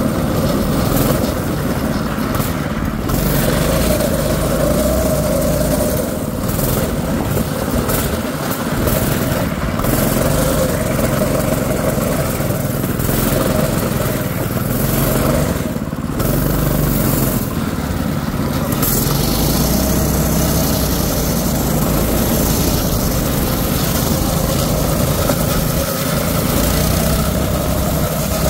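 Predator 6.5 hp single-cylinder small engine on a drift trike running steadily as the trike rides along the street.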